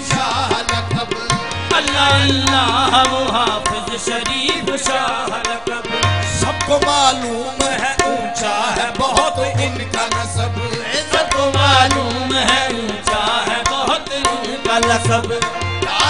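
Qawwali music: tabla keeping a steady beat with deep bass strokes under a bending, ornamented melody line.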